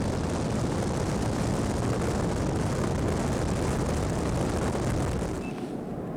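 Steady low rumble and roar of a moving vehicle, easing slightly about five and a half seconds in.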